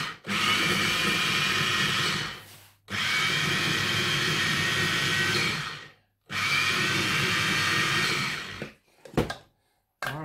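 Small electric mini-chopper blending canned crushed tomatoes in its glass bowl. It runs in three pulses of about two to three seconds each, winding down after each one. A short knock follows near the end.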